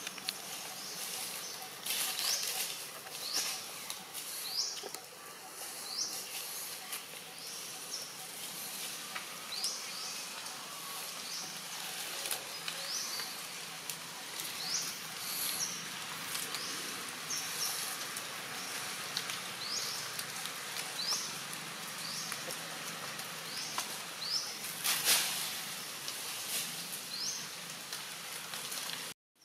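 A small bird repeating a short, high chirp about once a second, over a steady outdoor hiss with scattered rustles and crackles of dry leaves and a louder crackle near the end.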